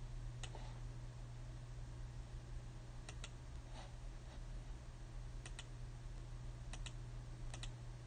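About ten soft clicks from working a computer's mouse and keys, several of them in quick pairs, over a low steady hum.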